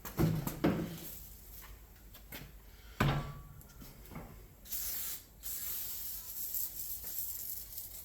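A few knocks as the tire and rim are handled, then a WD-40 aerosol can spraying in two hissing bursts, a short one about five seconds in and a longer one after it, wetting the tire bead as a stand-in for tire-mounting lube.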